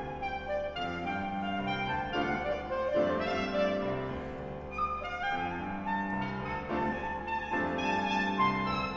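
Clarinet and grand piano playing together: the clarinet carries a line of held notes that change pitch every half second or so, with piano accompaniment underneath.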